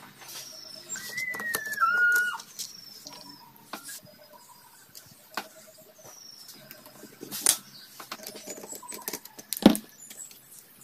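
Birds chirping in the background with repeated short falling whistles, and one loud bending whistle about a second in. Sharp metallic clicks of engine parts being handled on the crankcase come through, with the loudest knock near the end.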